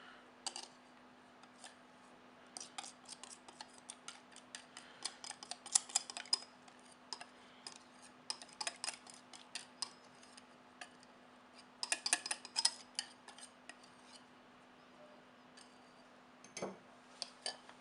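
A spoon scraping and tapping against a bowl and mug as cake batter is scraped into the mug: clusters of quick light clicks with pauses between them, over a faint steady hum.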